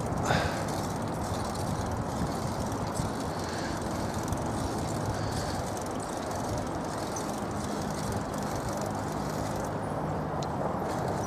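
Steady rumble of a bicycle rolling along city pavement, with wind buffeting the microphone. A short high squeak sounds just after the start.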